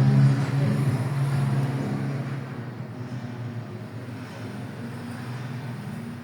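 Car running with a steady low hum, loudest at first and easing down over the first couple of seconds before holding level.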